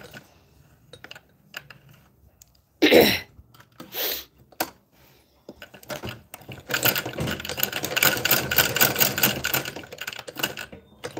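Sewing machine running in a fast, even clatter of stitches, about ten a second, for some four seconds in the second half, after a couple of sharp knocks about three and four seconds in.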